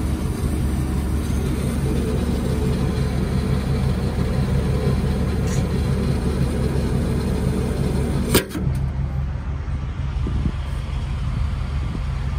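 Steady low hum of an idling engine. About eight seconds in there is one sharp click, and a faint high hiss stops with it.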